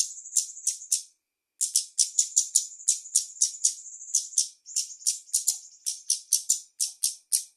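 Female kemade (cabe-cabean) bird singing in the rapid 'konslet' style: a fast run of sharp, high chips, about five or six a second, mixed with short buzzing trills, with a brief pause about a second in.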